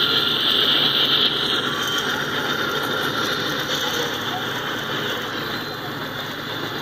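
Freight train passing close by: diesel locomotives running as they go past, then covered hopper cars rolling with a steady rumble of wheels on rail. A high whine in the first second fades out.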